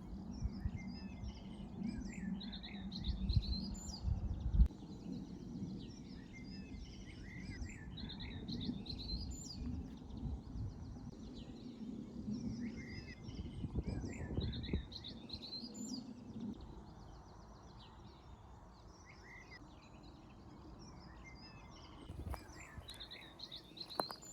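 Songbird singing short repeated chirping phrases every couple of seconds, over a low outdoor rumble with a few dull thumps near the start.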